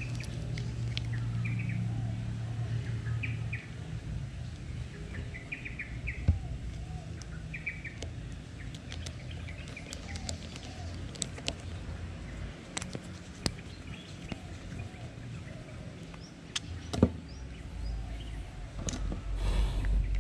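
Scattered sharp clicks and taps of a spinning reel's metal parts being handled and fitted together during reassembly. Birds chirp in the background in the first half, a low hum sits under the first few seconds, and a low rumble builds near the end.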